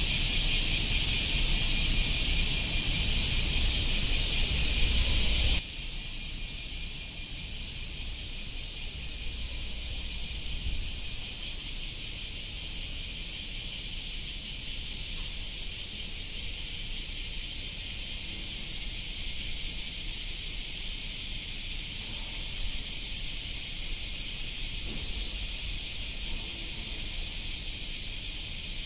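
A dense chorus of cicadas: a steady, high, rapidly pulsing buzz. It drops suddenly to a quieter level about five and a half seconds in and carries on.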